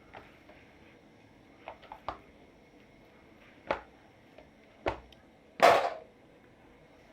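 Kitchen handling sounds: a few light knocks and taps, then one louder, brief scrape-like noise about five and a half seconds in.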